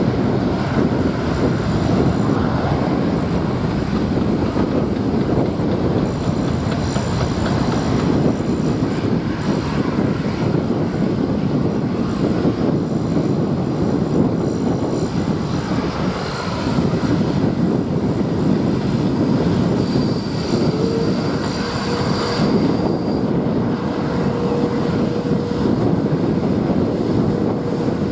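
Jet airliner engines running, a steady loud roar, with a steady whine coming in about twenty seconds in.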